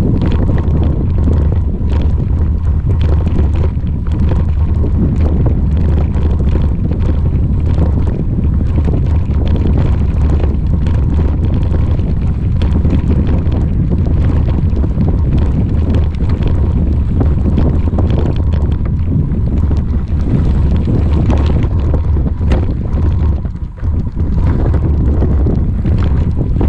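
Wind buffeting a GoPro Hero5 Session's microphone as it rides on a bicycle over a gravelly dirt track: a loud, deep, continuous rumble with many small knocks and rattles from the bumps, and a faint steady whine underneath. The rumble drops briefly a little before the end.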